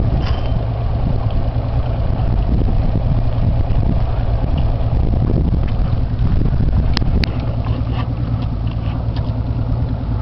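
Boat engine idling steadily, with a couple of sharp clicks about seven seconds in.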